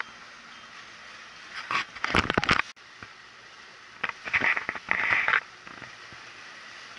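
Wind and water noise aboard a sailing yacht under way in a chop: a steady rush of water and wind, with louder noisy spells about two seconds in and again around four to five seconds in.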